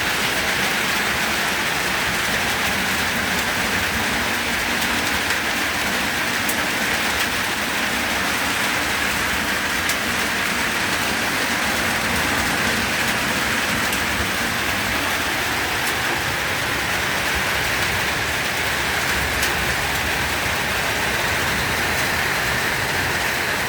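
Steady heavy rain pouring down, with a few sharp ticks of single drops.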